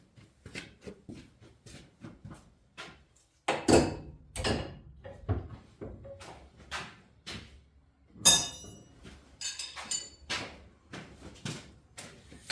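Hand tools knocking and clanking on metal as a seized oil drain plug is worked at, with a run of small clicks and knocks, heavier thuds a few seconds in, and a sharp ringing metal clank about eight seconds in.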